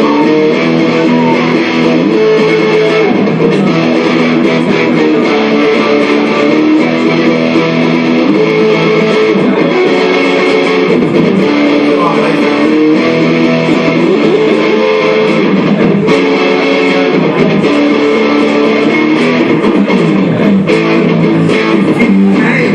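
Guitar-led music at a steady loud level, with held and changing guitar notes and strumming.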